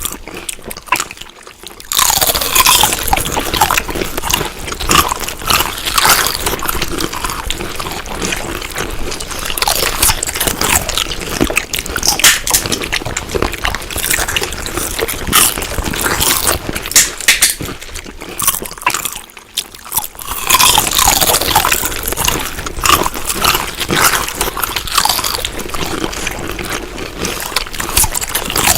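Close-miked wet chewing and eating sounds: smacking, squelching and crunching bites, continuous apart from two short pauses, one just after the start and one about two-thirds of the way through.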